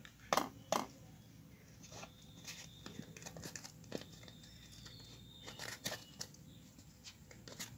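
Faint crinkling and rustling of a packet being tipped and shaken over a steel bowl, with two sharp clicks in the first second and scattered soft taps after.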